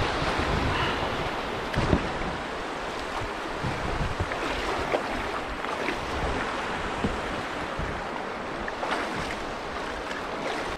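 Choppy river water washing and splashing around an inflatable raft, with a few short splashes. Wind buffets the microphone in a low rumble at the start, then eases.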